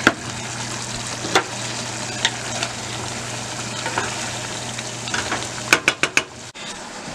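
A pot of thick ground-beef-and-bean chili sizzling on the stove while a wooden spoon stirs it, with occasional sharp knocks of the spoon against the pot and a quick run of knocks about six seconds in.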